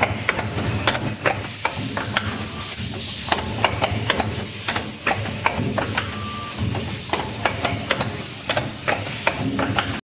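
Automatic strapping-buckle machine running, bending steel wire into buckles. Its forming tools and pneumatic cylinders give sharp metal clicks and knocks several times a second over a steady hum and a faint air hiss.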